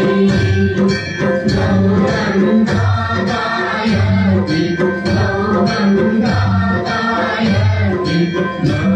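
Hindu aarti hymn being sung, with percussion keeping a steady beat.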